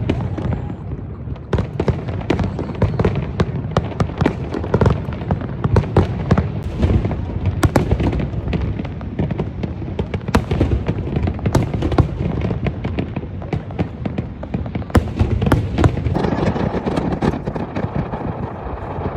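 Fireworks display: a dense, irregular run of booms and sharp crackling bangs over a continuous low rumble.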